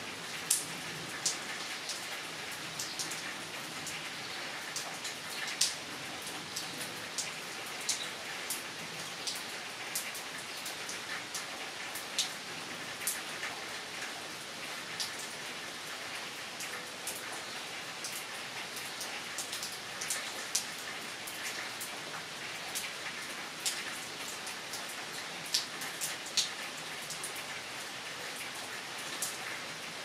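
Steady rain falling on woodland trees and foliage: an even hiss, with scattered sharp drips ticking close by throughout.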